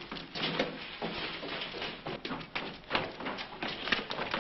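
Hurried footsteps and scuffing on a stone floor: an irregular run of short knocks, about two or three a second.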